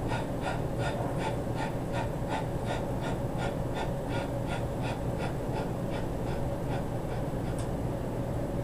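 A man breathing hard under heavy exertion in quick, even puffs, about two or three a second, that fade away about six seconds in. A steady hum runs underneath.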